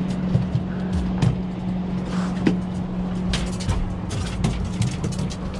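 Small outboard kicker motor running steadily with a constant hum, mixed with scattered knocks and clatter of things being handled on the boat.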